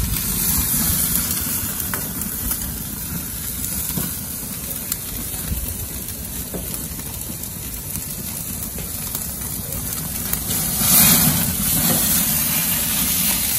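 Beef fat sizzling and hissing as a tomahawk steak cooks over the burners of a propane gas grill, with a steady low rumble of flames underneath. Dripping grease feeds flare-ups, and the sound grows louder for a moment about eleven seconds in as the fire flares up.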